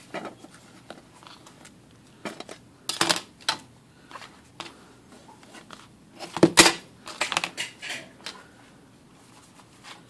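Scattered clinks and knocks of metal pieces being handled and set down on a workbench, a steel plate and a heavy metal block, with the loudest knock about six and a half seconds in.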